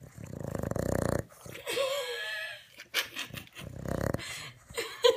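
Dog snoring in its sleep: a rattling snore about a second long, then a wavering whistling wheeze, then a second, shorter rattling snore near the end.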